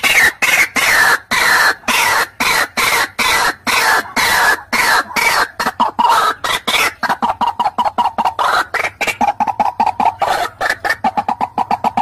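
White-breasted waterhen's territorial call, used as a lure that draws rival wild birds in: a fast, loud run of croaking notes, several a second. Over the first half the notes slide down in pitch; from about halfway they repeat steadily at one pitch.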